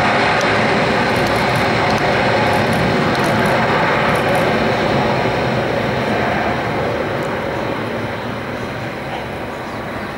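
Boeing 747's four jet engines running in a loud, steady roar as the jet rolls along the runway, slowly fading over the last few seconds.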